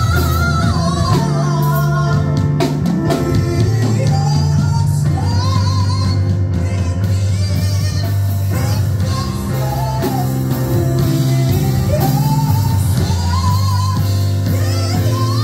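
A woman singing a worship song into a microphone with instrumental backing, her voice sliding and wavering through long held phrases over steady low accompaniment.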